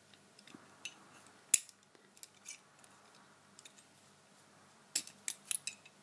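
Light metallic clicks and taps from a Lockwood 885 window lock and its key being handled. A few scattered clicks, the sharpest about a second and a half in, then a quick run of clicks near the end.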